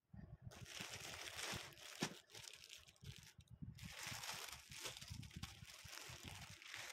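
Plastic packaging crinkling and rustling as clear plastic saree packets are pulled out of a polythene courier mailer and handled, with one sharp tap about two seconds in.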